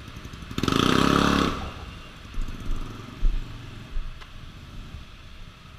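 A motorcycle engine revving loudly for about a second near the start, with a rapid pulsing exhaust note, followed by a few dull thumps over a steady low rumble.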